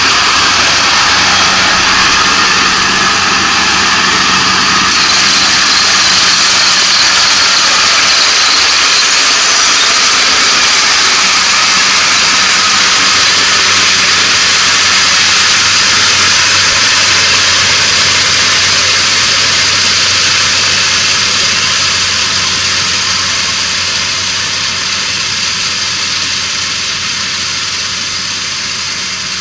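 A Kubota ARN460 rice combine harvester runs steadily while cutting rice, a dense engine-and-machinery noise with a low hum. It grows gradually quieter over the last third as the machine moves away.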